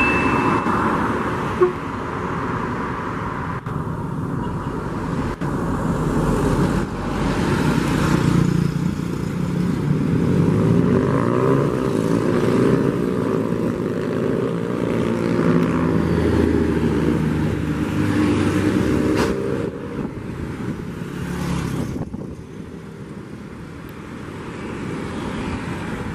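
Intercity coach's diesel engine running as the bus approaches and passes close by amid road traffic, its engine note rising and falling as it pulls through, loudest in the middle and fading near the end. A steady high tone sounds briefly at the start.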